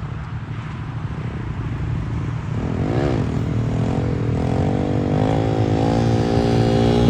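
Scania truck's diesel engine running and growing louder as it comes closer. A couple of seconds in, the engine note rises and falls once, then climbs steadily as the truck accelerates.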